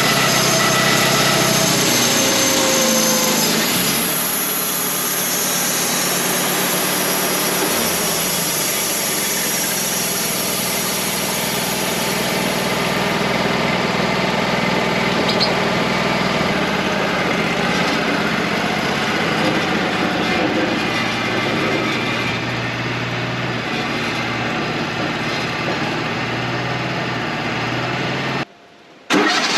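Wood-Mizer LT35 portable band sawmill running steadily, its engine and band saw head going continuously, with a short break near the end.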